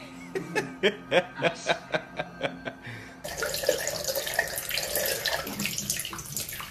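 A quick run of sharp knocks, about four a second, then, from about three seconds in, a bathroom tap running steadily into a sink.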